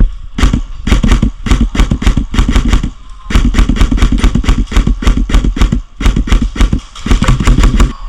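Airsoft gun firing rapid strings of shots close to the microphone, in three runs broken by short pauses about three and six seconds in.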